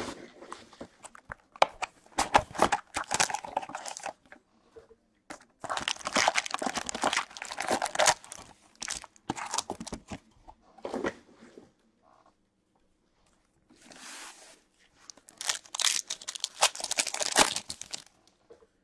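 Foil trading-card pack wrappers being handled and torn open by hand, crinkling and ripping in irregular bursts with short pauses between them.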